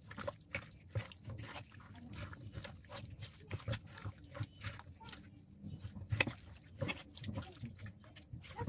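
Hands kneading raw chicken pieces through a wet yogurt-and-spice marinade in a metal kadai: irregular squelches and wet slaps.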